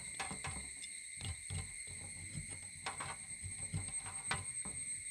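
Steel cleaver blade scraping and tapping against a steel tabletop as it cuts meat loose around a chicken wing bone, in irregular light clicks and scrapes. A steady high-pitched trill runs underneath.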